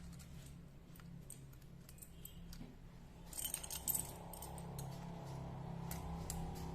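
Scattered metal clicks and a jingle of keys as a disc-brake lock is handled and unlocked with its key, with a louder burst of jingling about three and a half seconds in.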